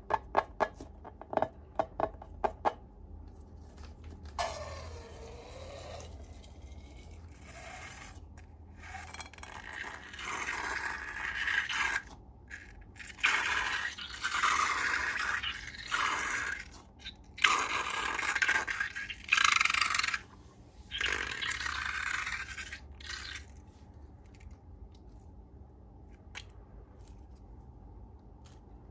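A quick run of sharp clicks, then repeated bursts of wet scraping and squishing as slime is worked and mixed, fading out near the end.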